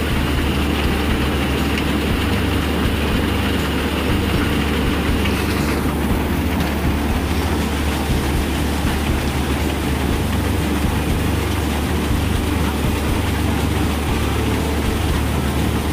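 Crop thresher running steadily while dried plants are fed into it, a dense mechanical clatter over a constant low hum. A faint high whine drops out about six seconds in.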